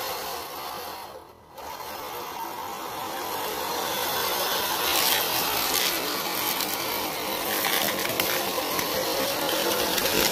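Electric motor and geared drivetrain of a 1/10-scale RC crawler running with a whine. It cuts out briefly about a second in, then grows louder.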